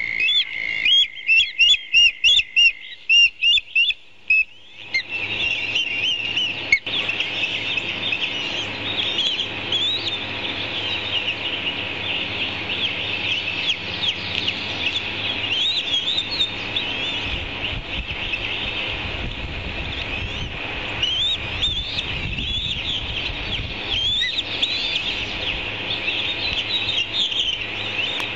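Bird-of-prey chicks in the nest chirping steadily while being fed, typical of begging calls, with frequent short rising notes. The first few seconds are rapid, loud pulsed chirps, and a low rumble joins past the middle.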